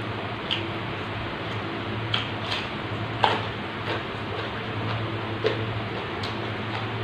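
Close-up crunching and chewing of raw vegetables dipped in sambal, about seven crisp crunches at uneven intervals, the loudest a little past three seconds in. A steady hiss and low hum lie underneath.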